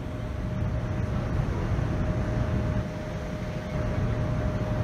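Boeing 787-9 cabin noise in flight: a steady low rumble of the Rolls-Royce Trent 1000 engines and airflow, with a thin steady whine running over it.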